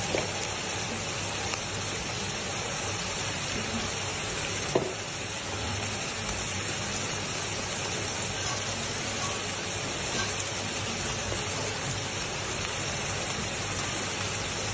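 Minced meat and sausage slices in sauce sizzling steadily in a wok, with one sharp tap about five seconds in.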